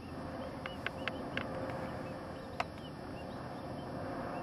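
Steady whirring hum of a large flock of ducks in flight, with faint short chirping calls and a few sharp clicks, most of them about a second in.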